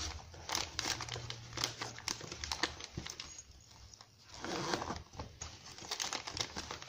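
Crinkling of a packet and rustling of the nylon mesh and fabric of a first-aid kit pouch as hands stuff cotton swabs into it, with irregular small clicks and scrapes and a denser rustle about two thirds of the way through.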